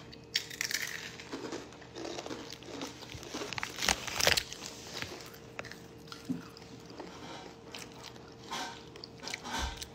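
A person biting and chewing something crunchy close to the phone's microphone: irregular crunches and small clicks, the loudest crunch about four seconds in.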